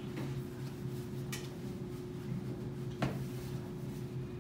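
Steady low room hum, with a faint click a little after a second in and a sharper single knock about three seconds in.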